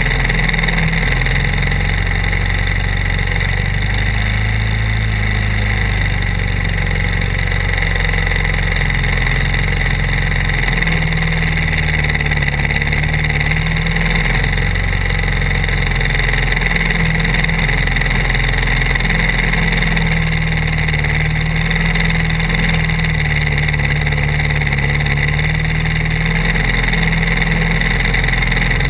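Briggs & Stratton World Formula four-stroke kart engines idling on the grid, running steadily with the pitch wavering a little.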